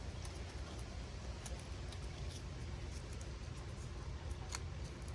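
A few faint clicks and rustles from hands connecting electrical wires at a light fixture, over a steady low rumble.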